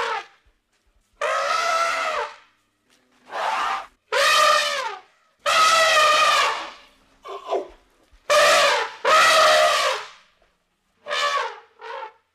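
Elephant trumpeting: a run of about eight loud calls, each up to about a second long, with short silent gaps between them.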